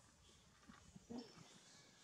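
A few faint, short monkey vocalisations, the clearest just over a second in, with small clicks between them.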